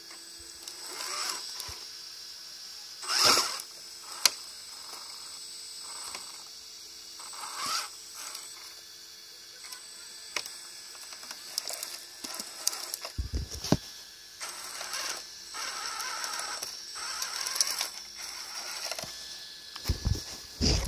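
A scale RC rock crawler's small electric motor and gearbox whir in short on-off bursts as it crawls, with clicks and scrapes from the tyres and chassis on rock and twigs. The loudest burst comes about three seconds in.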